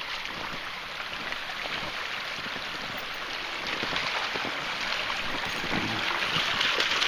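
A small woodland stream running over rocks, a steady rushing and splashing that grows a little louder toward the end.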